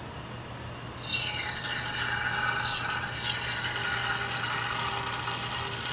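Tempura batter dropped into hot frying oil, sizzling from about a second in and going on steadily: the cook's check of the oil temperature, here for frying at medium heat.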